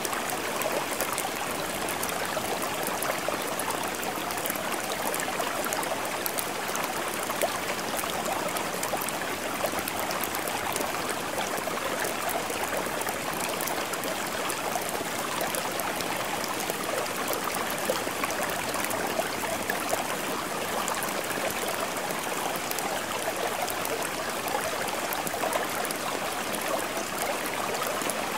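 Steady rain splashing: a continuous even hiss of water flecked with many small drop clicks, unchanging throughout.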